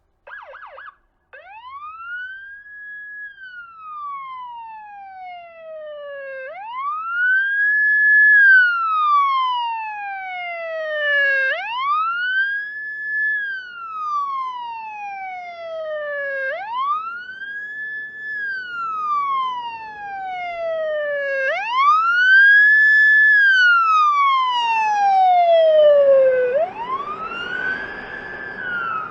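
Police siren sounding the wail tone. After a brief fast warble at the start, each cycle sweeps quickly up, holds for a moment, then glides slowly down, repeating about every five seconds. A rushing noise rises under it near the end.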